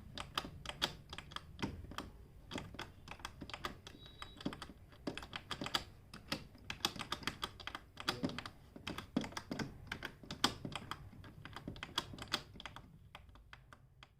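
Panel buttons of a Roland XPS-30 keyboard pressed one after another in quick succession: a rapid, irregular run of plastic clicks, several a second, thinning out near the end. The buttons are being tested after being cleaned of carbon dust with PCB-cleaning spray.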